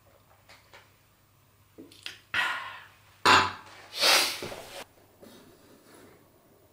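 A man finishing a drink: a breathy exhale, then a loud sharp knock on the wooden table about three seconds in, followed by a short rustling rush of noise.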